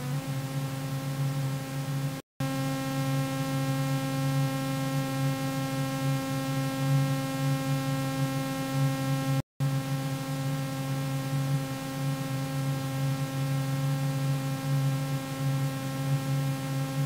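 A steady hum with a stack of even overtones, cut by two brief dropouts to silence about two and nine and a half seconds in.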